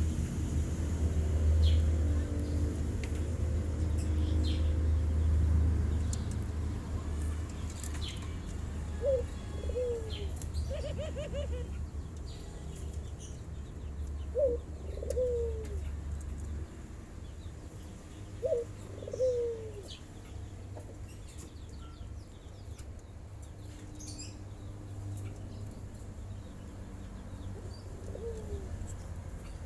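Barbary doves cooing, about six calls spread through the stretch. Each call is a short rising note followed by a longer falling coo. A steady low rumble sits underneath and fades a little past halfway.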